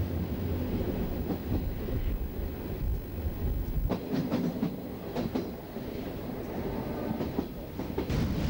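Passenger train carriage running along the tracks, heard from inside the car: a steady low rumble, with a few sharp clickety-clack knocks of the wheels over rail joints about halfway through.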